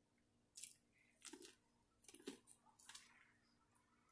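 Faint chewing of corn on the cob: a few short, soft mouth sounds spread through an otherwise near-silent stretch.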